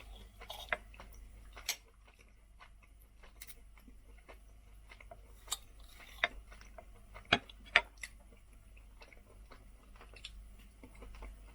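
Scattered sharp clicks of knife and fork against a plate, irregular and a few seconds apart, the loudest two close together about seven and a half seconds in.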